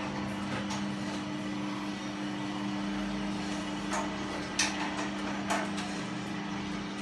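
Small drum coffee roaster running, its electric drive motor and gearbox giving a steady hum over a hiss. A few sharp metallic clicks and knocks come from about four to five and a half seconds in.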